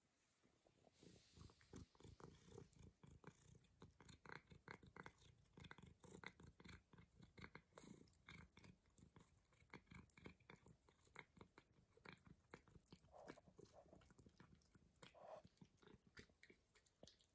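A cat chewing and biting a piece of cheese: faint, quick, irregular chewing clicks, several a second, starting about a second in.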